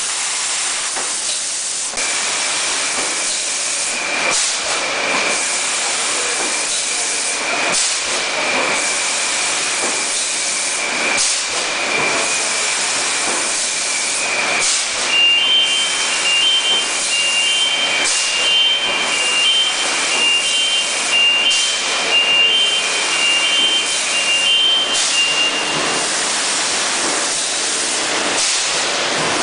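A running 6-litre PET bottle filling line: a steady hiss of air and machinery with a high whine, frequent short knocks, and a run of rapid, pulsing electronic beeps near the middle.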